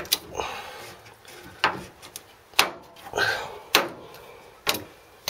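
Irregular sharp clicks and knocks with some rubbing, about seven in five seconds, as the drain hose's compression clamp is worked off a washing machine's water pump.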